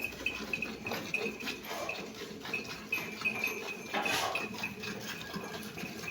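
Farm livestock sounds, with a high, thin pulsing chirp repeating in the background and a louder noisy burst about four seconds in.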